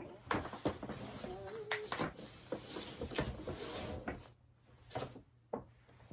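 Stiff paper shopping bag rustling and crinkling as a cardboard gift box is pulled out of it, with knocks of the box against the bag, then a couple of separate knocks near the end.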